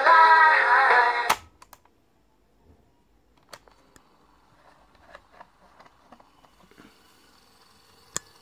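Music playing through the Sanyo M-5000 portable cassette recorder's built-in speaker, cut off abruptly about a second in by the clack of the stop key. Then faint small clicks and handling of the machine, with one sharp click near the end as the cassette compartment is opened.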